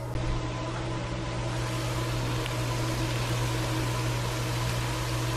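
Chopped onion and bell peppers frying in butter in a nonstick skillet: a steady sizzling hiss over a constant low hum.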